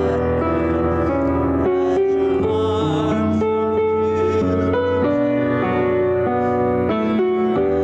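Slow instrumental keyboard music: held chords in a gentle, unhurried progression.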